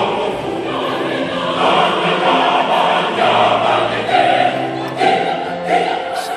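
A choir singing in several-part harmony, with voices holding long notes and moving together from one chord to the next.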